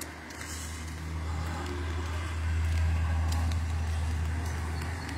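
A motor vehicle's engine running with a steady low hum that grows louder about halfway through, as of a heavy vehicle drawing near.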